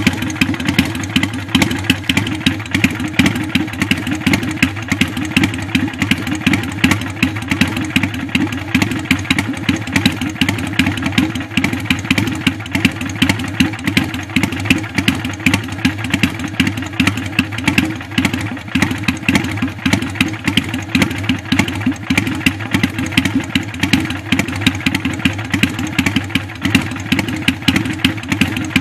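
Kawasaki Vulcan 400 (VN400) V-twin motorcycle engine idling steadily through an open, straight-through exhaust pipe, with a rapid even pulsing.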